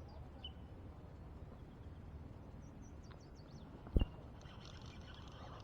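Faint bird chirps over a low steady background, with one sharp knock about four seconds in.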